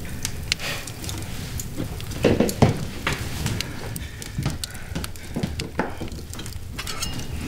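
Irregular clinks, knocks and scrapes of kitchen utensils and dishes being handled, as in stirring or serving at a table, over a low steady rumble.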